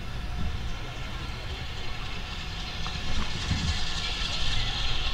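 Steam locomotive getting under way from a station, with a steady low rumble and a hiss of steam that builds up from about halfway through, and one low exhaust beat near the end.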